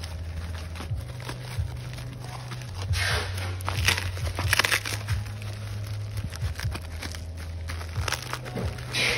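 Plastic bubble courier mailer crinkling and rustling as it is handled and pulled open, with louder bursts of crinkling about three to five seconds in and again near the end. A steady low hum runs underneath.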